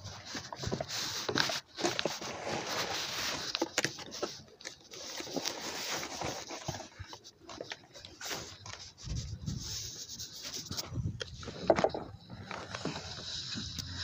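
Clear plastic wrap crinkling and rustling around a new wheel hub assembly as it is handled in its cardboard box, with irregular scraping and handling noises.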